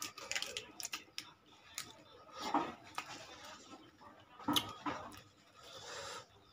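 Crisp lettuce leaf crinkling and tearing between fingers, then fingers picking at grilled fish flesh and folding it into lettuce, with scattered small clicks. Two brief louder sounds come about two and a half and four and a half seconds in.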